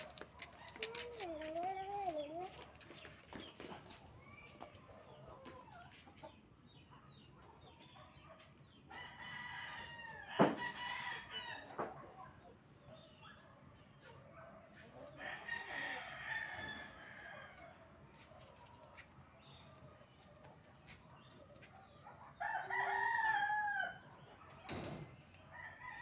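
Rooster crowing three times, long drawn-out crows several seconds apart, with a sharp knock during the first crow.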